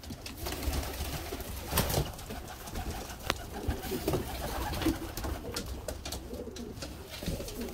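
Domestic pigeons cooing, with a few sharp clicks among them.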